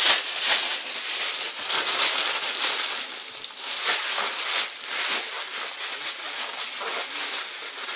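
Thin plastic bags packed with smelt rustling and crinkling steadily as they are handled and moved about on a table.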